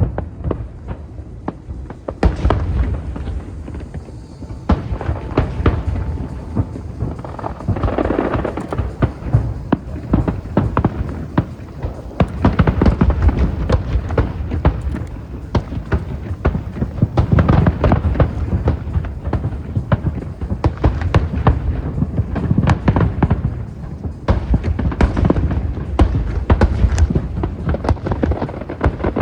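Aerial fireworks bursting in a rapid, continuous barrage: deep booms overlapping with sharp cracks and crackle.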